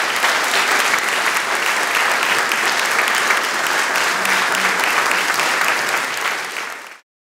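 Large seated audience applauding, a dense even clapping that fades out quickly and stops near the end.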